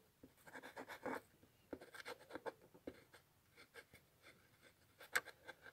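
Pen scribbling on a small scrap of paper: faint scratching in short strokes with pauses, and a couple of sharp taps about five seconds in.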